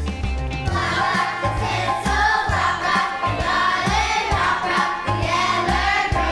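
A choir singing a holiday song over an instrumental backing with a steady bass and beat.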